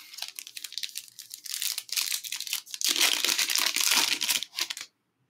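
A foil Absolute Football trading-card pack wrapper being torn open and crinkled by hand. It makes a dense crackling that grows louder about two seconds in and stops just before the end.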